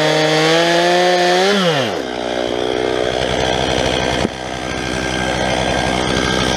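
Stihl 391 two-stroke chainsaw revving steadily with no load, then the throttle is let off and the revs fall away to a rough idle about two seconds in. One sharp click about four seconds in.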